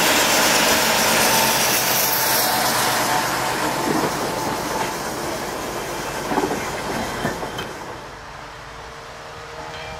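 A train running along the rails, loud at first and fading away over the last few seconds, with a few wheel clacks over the rail joints.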